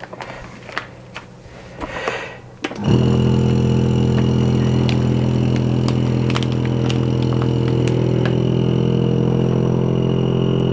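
Lava V100 suction vacuum sealer's pump starting about three seconds in and then running with a steady hum, pulling the air out of a bag around a steak. Before it starts come a few clicks and plastic-bag crinkling as the lid is pressed shut.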